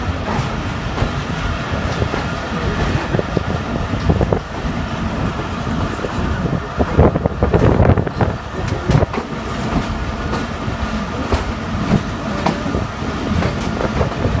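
Passenger train running, heard from on board: a steady low rumble of wheels on the track with many short clicks over the rails, growing louder with a clatter for a second or two about halfway.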